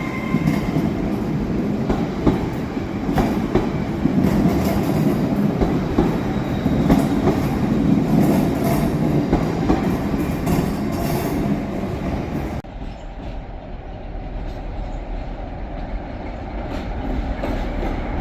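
TransPennine Express Class 802 bi-mode train on the move, a steady rumble with wheels clicking over the rail joints. About two-thirds of the way through the sound cuts off abruptly to a quieter low hum.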